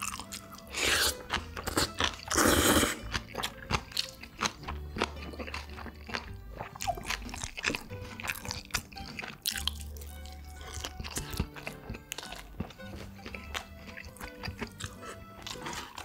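Close-miked eating sounds: a person chewing and crunching food, with many short wet clicks and two louder crunching bursts about one and two and a half seconds in, over background music with steady low notes.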